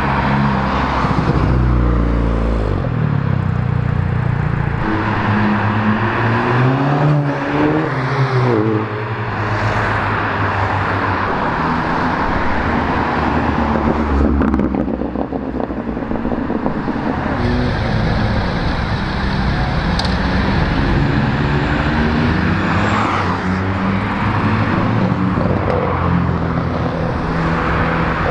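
Cars driving past one after another with their engines running and revving up as they pull away. The engine note climbs in pitch a couple of times in the first ten seconds, over constant traffic noise.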